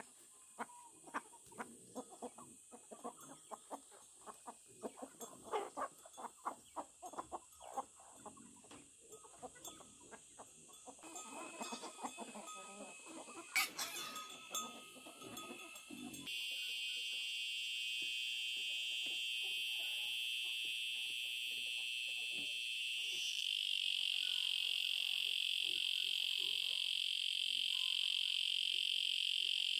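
Chickens clucking among many short, irregular knocks and rustles. About halfway through, this gives way abruptly to a steady, high-pitched chorus of calling animals that swells slightly a few seconds later.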